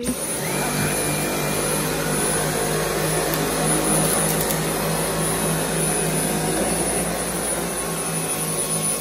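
Dyson Cyclone V10 cordless stick vacuum running steadily while its motorised cleaner head is pushed over carpet: a steady motor whine with a thin high tone above it.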